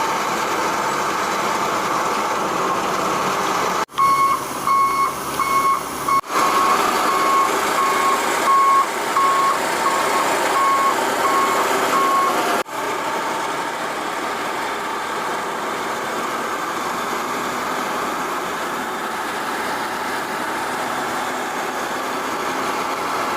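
Heavy construction machine running steadily, with its reversing alarm beeping over and over from about four seconds in until about twelve seconds in. The sound breaks off abruptly three times, at cuts between clips.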